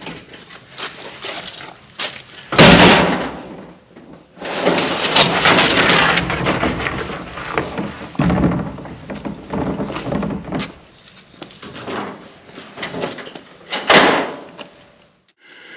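Empty IBC tote, a plastic bladder in a steel tube cage, tipped over onto concrete with a loud crash and rattle of the cage, then a long scraping and rustling as the plastic bladder is dragged out. Smaller knocks follow, and another crash near the end as a second tote is tipped.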